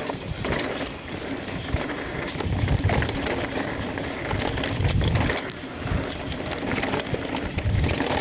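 Mountain bike ridden fast down a rocky dirt trail: tyres crunching and clattering over rock, with the chain and frame rattling in quick clicks. Low rumbling surges come three times, about a third, two thirds and near the end of the way through.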